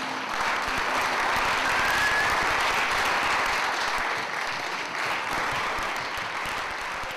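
Audience applauding: dense clapping that swells over the first couple of seconds after the music ends, then gradually eases off.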